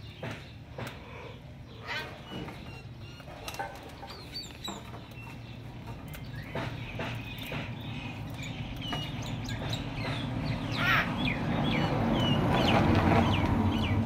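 Cockatiels giving short chirps and whistles, scattered at first and coming thick and fast in the second half, with a few sharp clicks early on. A low rumble builds up under them toward the end.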